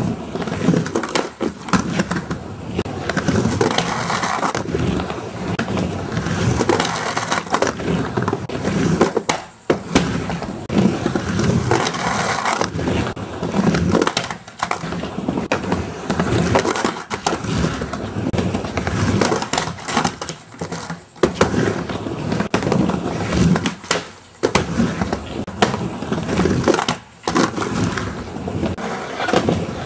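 Skateboard rolling back and forth on a backyard micro ramp, its wheels running on the ramp surface, with trucks grinding on pool coping and sharp clacks as the board hits and turns. The rolling stops briefly a few times between runs.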